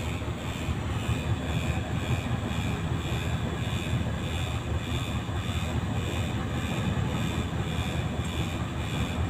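Heavy diesel engine running steadily at low revs, an even, unbroken drone.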